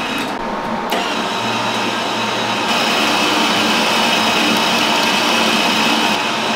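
Millermatic 135 MIG welder's wire-feed drive motor running steadily while the gun trigger is held, feeding wire off the spool through the drive roll into the gun liner. The motor noise gets louder a little over two seconds in.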